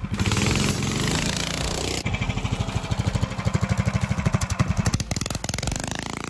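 Predator 301 cc single-cylinder engine on a mini trike running hard and revving up as the trike speeds past, its pitch climbing over a few seconds.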